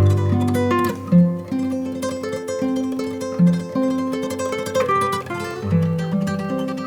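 Gentle instrumental background music played on a plucked string instrument, a slow melody of single notes changing every half second or so over sustained low notes.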